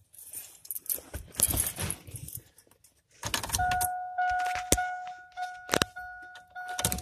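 Keys jangling, then the cab warning chime of a 2000 Chevrolet 2500 pickup dinging about twice a second after a thump. A few sharp clicks sound over the chime, and a louder thump comes near the end.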